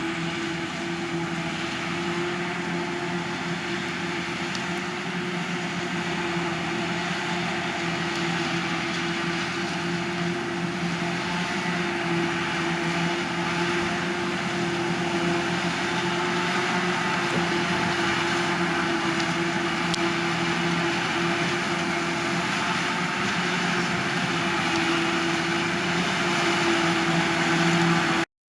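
Large farm machinery running steadily: a continuous engine drone with a steady hum and whine, growing slightly louder, then cutting off suddenly near the end.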